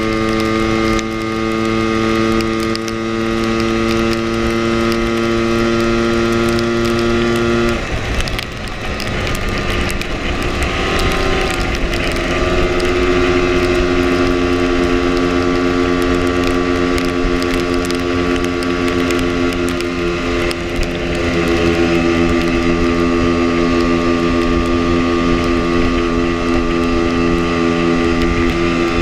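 Lambretta scooter's two-stroke single-cylinder engine running at road speed, with wind rumble on the microphone. About eight seconds in, the steady engine note breaks up for a few seconds, then settles again at a lower pitch.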